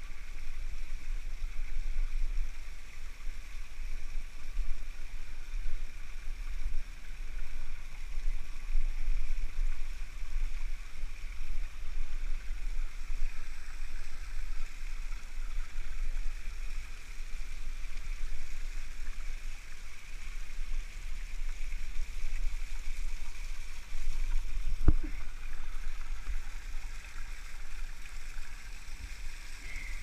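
Wind buffeting the camera's microphone: a low, gusty rumble that rises and falls, over a steady hiss, with a single knock near the end.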